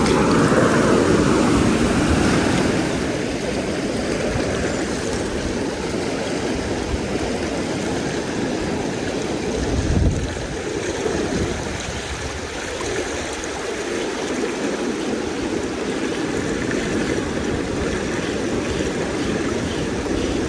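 River water rushing steadily, louder for the first few seconds, with a brief low thump about halfway through.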